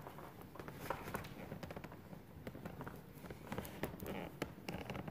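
Handling noise of a braided rope carry strap being wrapped around a folded hard plastic sled: a scatter of light clicks and taps with short rustling scrapes of rope over plastic.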